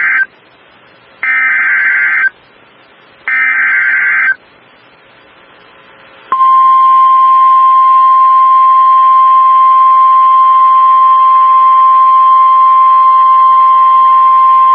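NOAA Weather Radio EAS alert signal: the end of one SAME digital header burst and then two more, each a buzzy data warble about a second long with short gaps between. About six seconds in, the steady single-pitch 1050 Hz Weather Radio warning alarm tone starts and holds. Together they announce a new severe thunderstorm warning.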